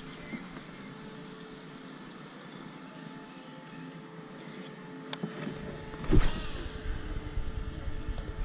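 Steady faint hum of a distant motorboat engine. About six seconds in there is a sudden swish with a falling whir from the fishing rod and baitcasting reel, and after it wind buffets the microphone.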